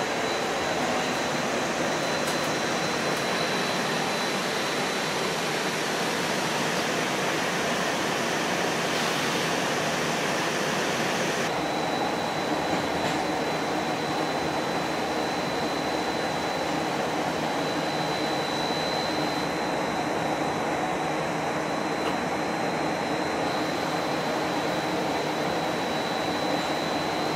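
Cabin noise inside a moving battery-powered streetcar (an Inekon Trio car): a steady rumble and hiss of the car running on its rails, with a constant high-pitched whine over it.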